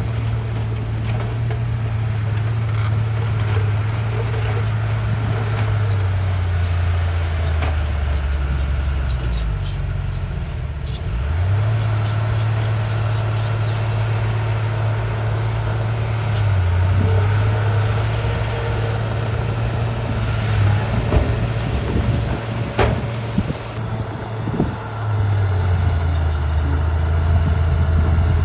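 Bulldozer's diesel engine running hard, its pitch sagging under load a few times and then recovering, with scattered clanks and one sharp knock.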